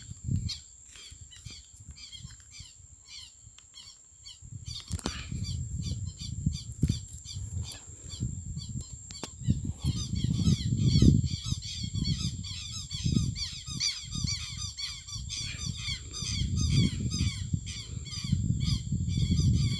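Outdoor ambience: gusty low rumbling on the microphone with many small birds chirping, the chirping and rumbling both getting busier about halfway through.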